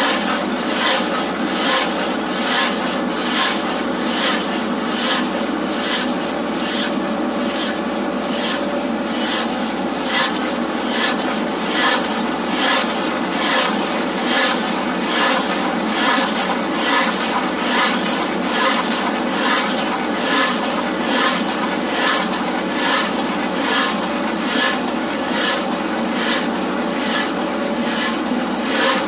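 Case SV280 skid steer's diesel engine running under load as its low-flow hydraulics drive a Lowe 2175 auger drive and a Titan 10-inch tree planer bit, grinding a small stump into wood chips. The noise pulses in a regular beat, about one and a half times a second.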